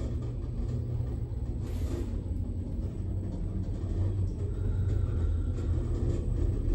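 Passenger lift car travelling upward, heard from inside the car: a steady low rumble that grows a little louder in the second half.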